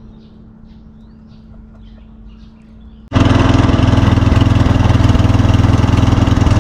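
A boat's engine comes in abruptly about three seconds in and runs loud and steady. Before that there is only a low hum with a few faint high chirps.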